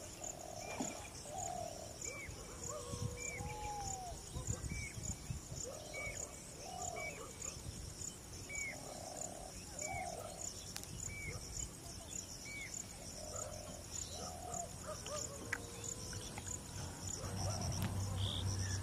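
Outdoor wildlife chorus: insects keep up a steady high pulsing trill while a bird repeats a short chirp about every three quarters of a second, with lower call notes coming in pairs now and then. A low rumble comes in near the end.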